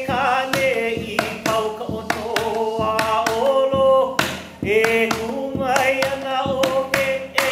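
Hawaiian chant (mele) for hula: a chanter holds long notes on nearly one pitch, moving only a little up and down. Frequent sharp percussion strikes run under the voice in a regular beat.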